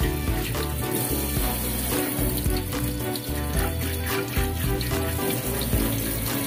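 Background music with a bass line that steps from note to note and held notes above it.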